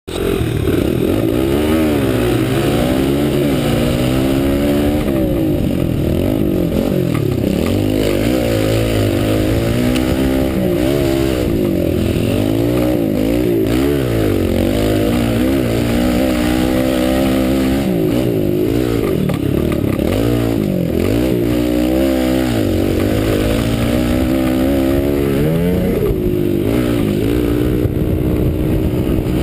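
Pit bike engine heard close up from the rider's helmet, revving hard and easing off again and again, its pitch climbing and dropping every second or two as it is ridden in a race.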